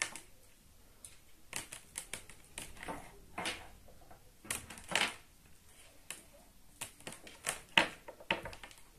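Scattered clicks and rustles of a lavalier microphone's long cable being unwound and handled, with one sharper click near the end.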